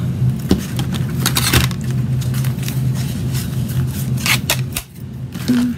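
Scattered clicks and light scrapes of paper and craft tools being handled, over a steady low hum.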